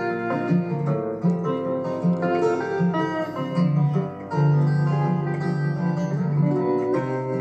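Instrumental break by an acoustic string band, with no singing: acoustic guitar, mandolin and electric guitar playing together.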